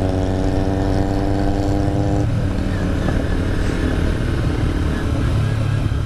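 Sport-bike engine of a Kawasaki Ninja running at a steady cruise, heard from the rider's seat with heavy wind rumble on the microphone. About two seconds in, the steady engine note drops away, leaving mostly rough wind and road noise.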